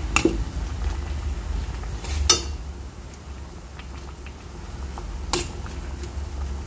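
Broth simmering in a stainless steel pot over a low steady rumble, with three sharp clinks of metal tongs against the pot as vegetables are pushed in: one near the start, a louder one about two seconds in, and one about five seconds in.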